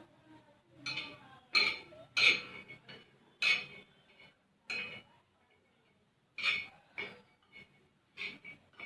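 Dishes clinking and knocking: a string of irregular sharp clinks with short ringing as kitchen dishes are handled and set down.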